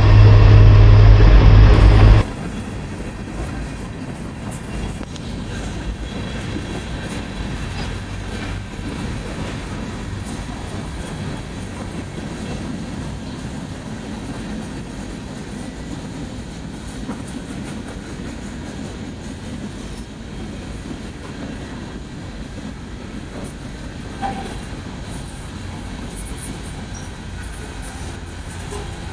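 Union Pacific manifest freight train's cars rolling past, a steady rumble of wheels on the rails with occasional clicks. About two seconds in, a loud pitched locomotive sound with a deep rumble cuts off suddenly.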